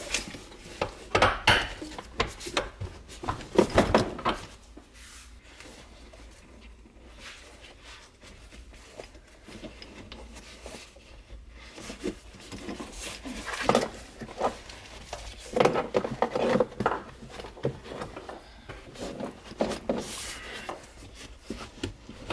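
Scattered knocks, clunks and rubbing of a car's rear seat backrest being handled and worked loose. Busy in the first few seconds, quieter in the middle, busy again in the second half.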